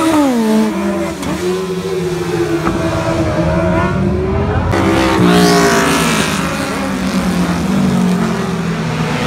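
Racing sidecar outfits passing close one after another, their motorcycle engines revving up and down; one engine's pitch falls just after the start as it goes by, and another, rougher-sounding outfit comes through about five seconds in.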